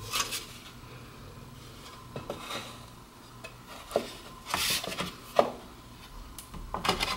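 Laminate flooring planks being handled and fitted: scattered light knocks and clicks with some scraping, a few of them sharper about four to five seconds in.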